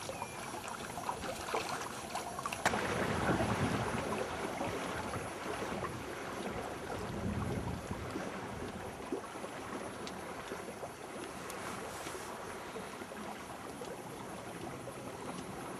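Steady rush of water and wind aboard a small sailing yacht under sail. A sharp click comes about three seconds in, followed by a couple of seconds of louder rushing.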